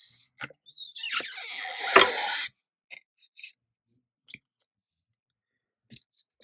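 Masking tape pulled off its roll with a brief tearing squeal about a second in, ending in a sharp snap as it is torn off. After that, only small taps and paper handling.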